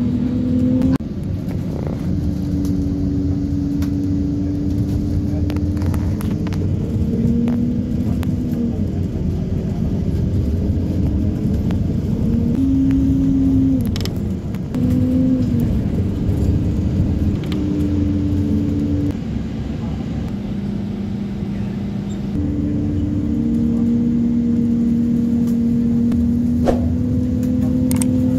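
Bus engine and road rumble heard inside the passenger cabin while driving, with the engine note stepping up and down in pitch several times.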